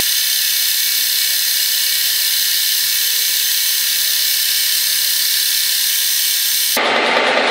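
Milling machine spindle running with a small end mill cutting a round metal part, likely a bearing cover. It gives a high, steady whine of many tones with little low end, and changes abruptly near the end to a fuller, lower machine noise.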